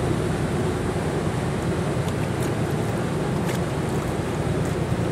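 Steady drone of a boat engine with water rushing alongside the hull: a low hum, a faint held tone above it, and a few faint clicks.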